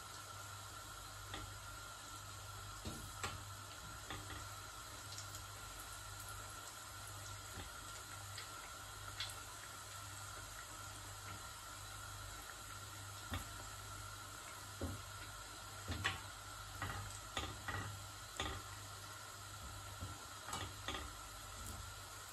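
Breaded arancini deep-frying in a saucepan of hot oil, a steady sizzle and bubbling. Tongs tap and click against the pan and the rice balls a few times, mostly in the second half.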